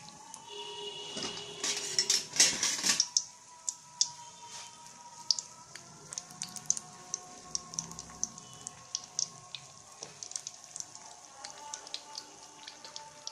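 Bread slices deep-frying in hot refined oil: a steady crackle of small sputtering pops, with a louder, denser flurry about two to three seconds in.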